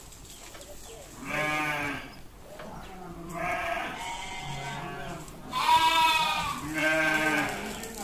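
Goats bleating: four separate calls spaced a second or two apart, the third the loudest.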